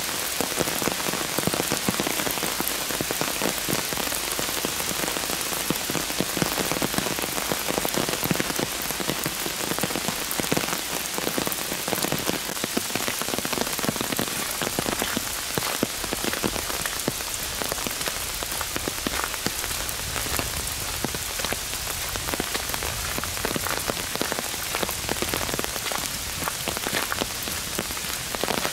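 Steady rain, with a dense patter of individual raindrops hitting close by.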